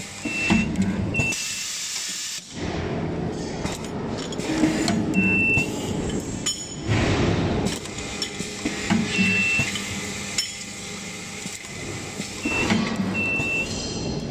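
Automatic nut spot welding machine cycling: recurring hisses of compressed air from its pneumatic cylinders and nut feeder, with metal clinks of nuts and steel brackets. Short high tones sound several times.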